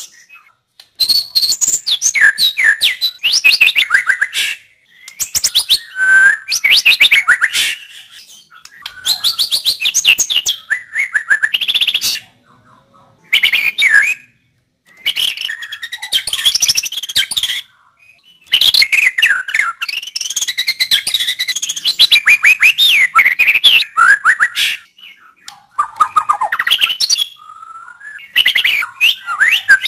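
White-rumped shama (murai batu) singing loud bursts of rapid, varied whistles and trills, each phrase a few seconds long, broken by short pauses.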